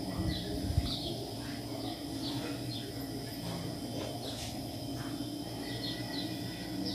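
Small birds chirping again and again in the background, short high chirps every second or so over a steady room hum. A couple of low bumps in the first second are the loudest sounds.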